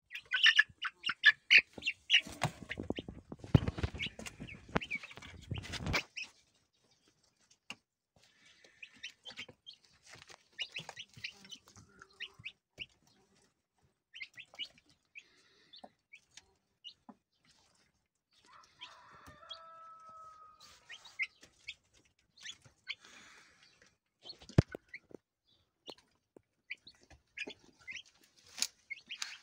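Young Light Brahma chickens peeping and chirping, with a loud flurry of wing flapping from about two to six seconds in. After it come scattered short chirps, a longer call near the middle, and sharp taps of pecking at food.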